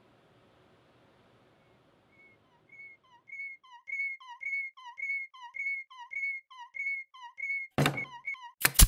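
Animated end-card sound effects. After a faint room tone, a run of short whistle-like chirps starts about two seconds in, about two a second and growing louder. Near the end come a sharp knock and then two louder clacks.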